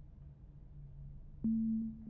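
Faint low hum, then about a second and a half in a single low, pure tone sets in suddenly with a click and holds steady: a film-score sound-design sting.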